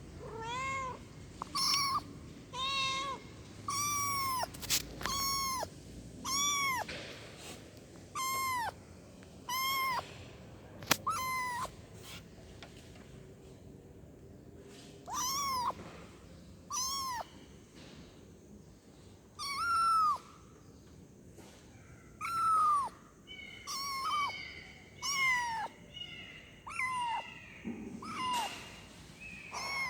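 Kitten meowing over and over, calling for its mother: short, high-pitched meows a second or two apart, with a pause of a few seconds about halfway through.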